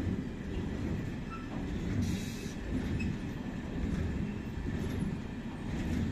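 Loaded two-deck car-carrier freight wagons rolling past: a steady rumble of wheels on rails, with a brief higher hiss about two seconds in.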